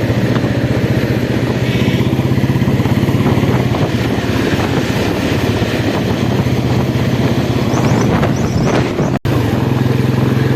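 Royal Enfield Bullet single-cylinder motorcycle engine running steadily with an even thumping exhaust beat. The sound drops out for an instant about nine seconds in.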